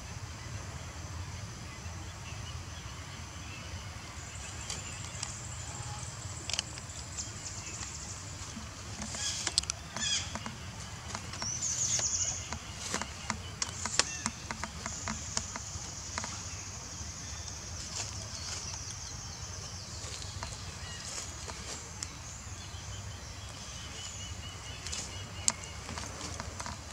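Outdoor ambience: a steady low rumble under high chirping calls, with a cluster of sharp clicks and a brief louder chirp about halfway through.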